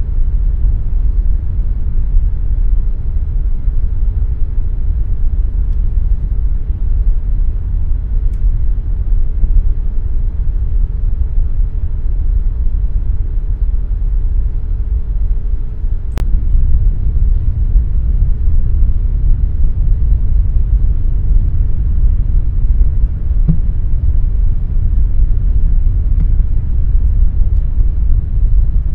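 Air conditioner running with a steady, deep rumble of air noise. A faint hum underneath stops with a single click about halfway through.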